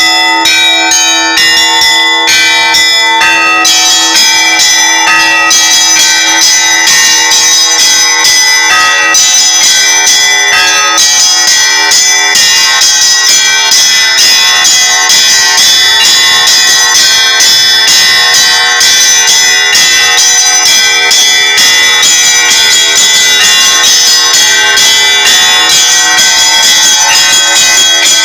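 Russian Orthodox church bells rung in a festive peal for the Ascension: rapid, continuous strikes of the smaller high-pitched bells over the steady ring of a lower bell.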